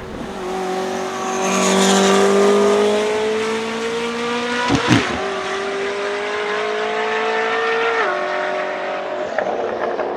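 Koenigsegg Jesko Attack's flat-plane-crank 5.0-litre twin-turbo V8 accelerating hard, its pitch climbing steadily. About halfway through comes a sharp crack at an upshift and the pitch drops back. It then climbs again until the driver lifts off near the end.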